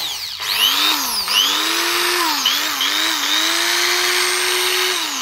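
Mosay corded electric drill running under no load. Its motor whine dips and picks up again several times as the trigger is eased and squeezed, then holds steady before cutting off at the end. It is a test run, and the drill works properly.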